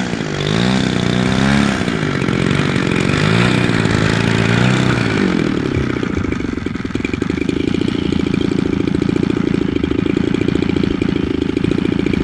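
DLE-55 single-cylinder two-stroke gasoline engine of an 81-inch FW-190 model plane, revving up and down several times as the plane taxis on grass, then settling to a steady idle about six seconds in.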